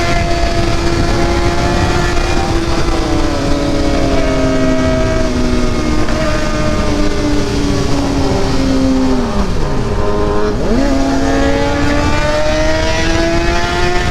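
A 600 cc sport motorcycle's engine running at speed under the rider, its note sliding gradually down and up with throttle and gear changes. About ten seconds in the pitch drops steeply and then climbs straight back as the engine revs up again, over a steady rushing noise.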